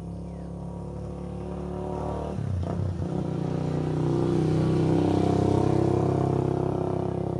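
A motor vehicle engine running and passing close by, growing steadily louder to a peak about five seconds in, then easing off slightly.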